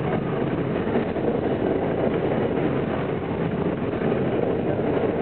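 R42 subway train running at speed over the Manhattan Bridge, heard from inside the car as a steady rumble of wheels on the rails.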